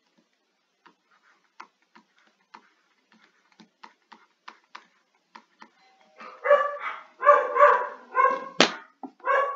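Light taps of a stylus writing on a tablet screen, then a dog barking over and over in the last few seconds, set off by a FedEx delivery arriving.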